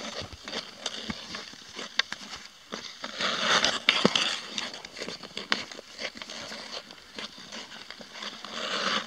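Ice skate blades scraping and carving across natural lake ice, the scraping swelling about three seconds in and again near the end, with scattered sharp clicks of a hockey stick on the ice.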